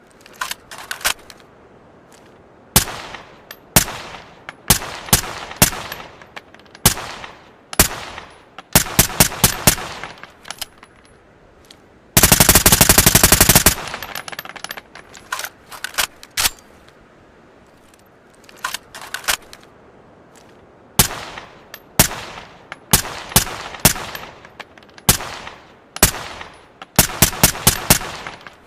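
Suppressed ARN-180 assault rifle firing single shots and short rapid bursts, each shot a sharp crack with a light metallic ring. About twelve seconds in comes one longer full-auto burst lasting about a second and a half.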